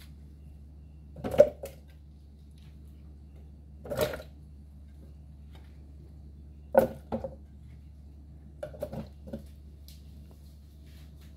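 Chunks of guava, pineapple and mango dropped into a blender jar of water, landing with separate plops and knocks every two to three seconds, with a quick run of three near the end.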